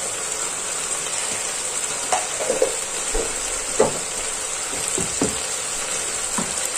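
Chicken pieces, potatoes and vegetables sizzling steadily in a hot pan, with a few brief pops and spits scattered through.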